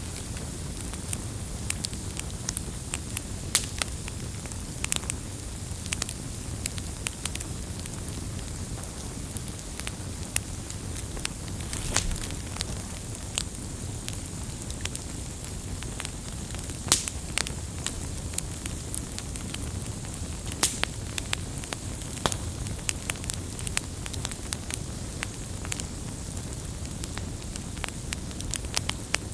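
Firewood fire burning: a steady low rush of flames with irregular crackles and sharp pops of the burning wood.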